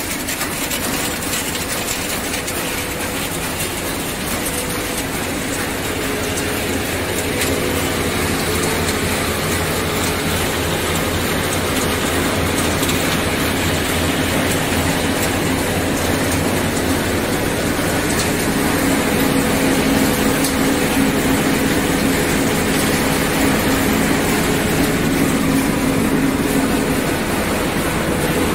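Refrigerator crushing and separating line running: a steady, loud industrial din with a low hum and dense mechanical clatter.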